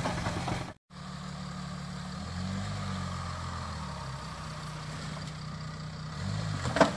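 Jeep Grand Cherokee's V6 turbo-diesel engine running at low revs as the vehicle crawls over a dirt mound. The revs rise briefly about two seconds in and settle back. The sound drops out for a moment just under a second in, and there is a short sharp noise near the end.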